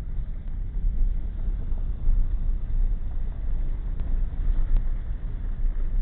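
Low, steady road rumble inside a vehicle's cabin as it drives along a dirt forest track, with its tyres crunching over fallen leaves.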